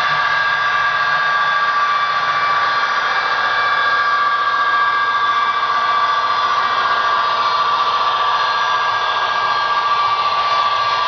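HO-scale model diesel locomotive running along the track: a steady whirring hum with two high whining tones from its motor and gears.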